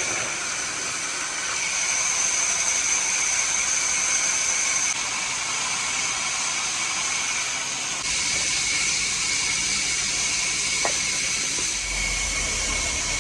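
A woodworking machine running steadily: a hissing noise with a high, thin whine, its character changing abruptly about five and eight seconds in.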